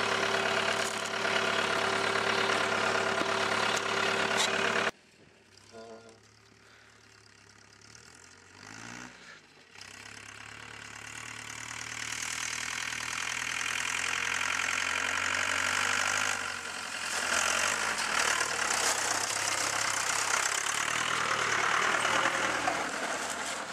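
Ford Transit diesel van's engine running as it is driven, heard close and loud at first. After a sudden cut it is faint and far off, growing louder as the van comes nearer across a field, then loud and close again near the end.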